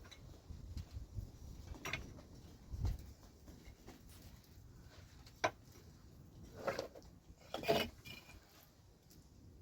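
Scattered light clicks and knocks, several seconds apart, over a faint low rumble; the loudest knocks come about two-thirds of the way through.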